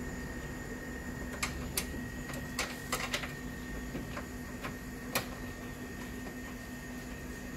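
Scattered sharp clicks and light knocks as the upper cover panel is set by hand onto a car's radiator support, a cluster in the first few seconds and one more about five seconds in, over a steady faint hum.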